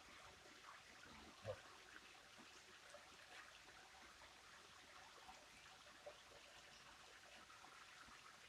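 Faint flowing river water with small trickling ticks, and one short dull thump about a second and a half in.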